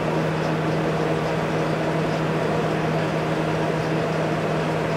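Steady whir and low hum of commercial kitchen machinery, unchanging throughout.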